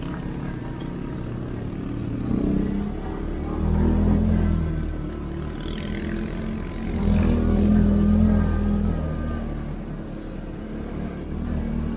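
CF-Moto 450 ATV engine running under throttle, its revs rising in several surges and easing off in between.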